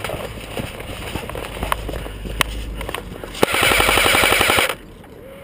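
Airsoft rifles firing on full-auto: a run of rapid clicks about two seconds in, then a louder burst of just over a second, close to the microphone, that cuts off sharply.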